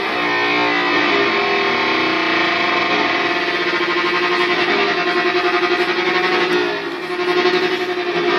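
Stratocaster-style electric guitar playing sustained, held tones in an experimental contemporary piece. From about the middle a fast pulsing wobble runs through the sound; the sound dips briefly near the end, then swells again.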